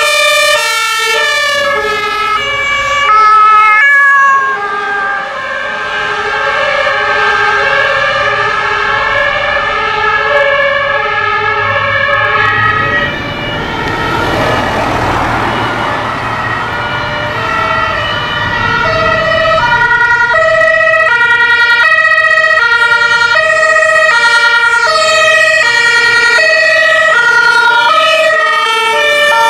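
German two-tone emergency-vehicle sirens (Martinshorn) sounding as fire trucks and ambulances drive past one after another, several of the alternating two-note patterns overlapping. About halfway through, a vehicle passes close, with a swell of engine and tyre noise.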